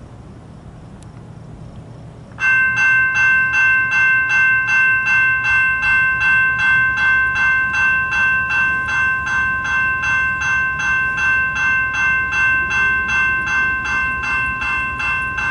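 Railroad grade-crossing warning bell starts up suddenly a couple of seconds in and rings steadily at about two and a half dings a second as the crossing activates, over a low rumble.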